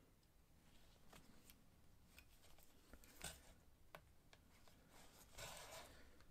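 Faint hand saddle stitching of leather: small clicks and soft rasps of needles and thread passing through the stitch holes, with a longer rasp near the end as the thread is drawn tight.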